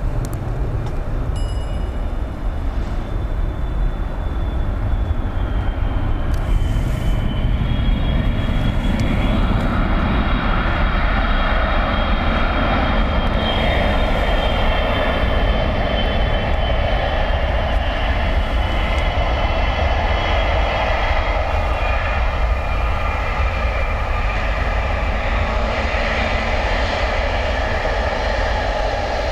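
Boeing 777-300ER's GE90-115B turbofan engines running as the airliner rolls along a wet runway: a steady rumble, with a high jet whine that grows stronger about eight seconds in.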